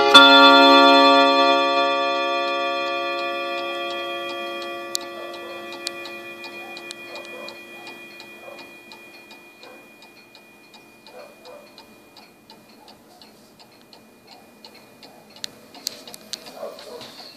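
Junghans Württemberg mantel clock's three gong rods struck by the chime hammer right at the start, then ringing on and slowly dying away over about ten seconds. As the ring fades, the steady ticking of the pendulum escapement takes over, with a few louder clicks near the end.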